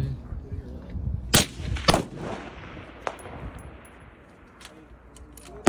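Precision rifle shots on an open range. A loud crack comes about a second and a half in and another half a second later, both followed by a rolling echo that dies away over a couple of seconds. A fainter crack comes near three seconds and another loud one at the very end.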